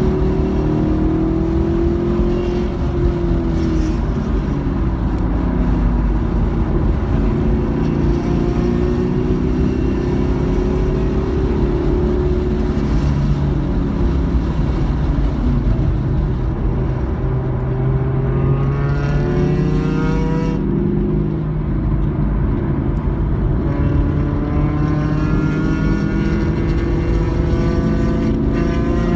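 Car engine under hard driving at track speed, heard from inside the cabin over heavy wind and road noise; its pitch falls and climbs several times as the revs change, with a sudden change about two-thirds of the way through.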